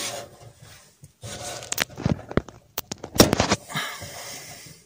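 Handling noise: rustling and rubbing on the microphone with a few sharp knocks as the camera is picked up and turned around.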